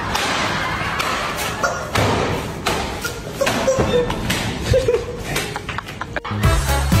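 Repeated thumps and slaps from a rubber hose being swung and striking in a tiled room, with voices; music comes in near the end.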